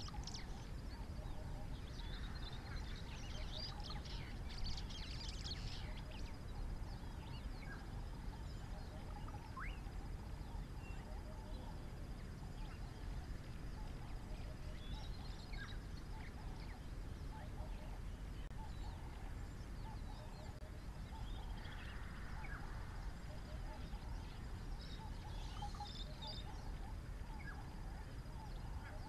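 Outdoor ambience of birds chirping and calling now and then, busiest for a few seconds near the start and again near the end, over a steady low rumble and a faint steady high tone.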